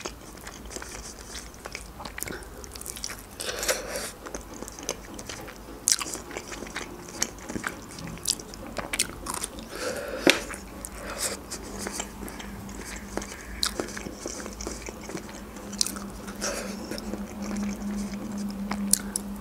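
Close-miked eating: biting into and chewing khinkali dumplings and broccoli, with many sharp mouth clicks and snaps. A low steady hum comes in about halfway through.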